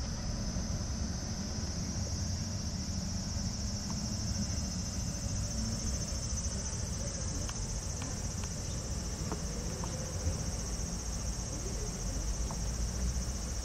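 Steady high-pitched insect drone over a low background rumble, with a few faint clicks in the middle.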